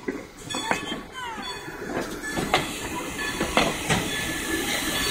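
Strasburg Rail Road wooden passenger coaches rolling past, their wheels knocking irregularly over the rail joints.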